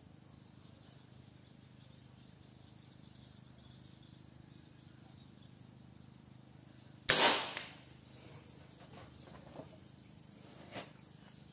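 A single shot from a 5.5 mm PCP T-Rex air rifle: one sharp crack about seven seconds in that dies away within half a second, over a steady high insect drone.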